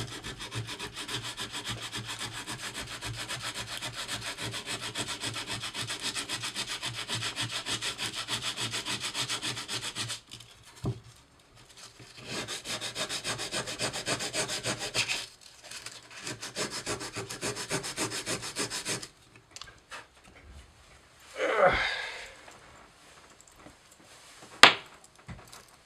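Hand sanding of an aluminum vacuum bell housing with worn, used 100-grit sandpaper: rapid back-and-forth scratching strokes in three spells, with breaks about 10 and 15 seconds in. Sanding stops at about 19 seconds, followed by a thump and then a sharp click near the end.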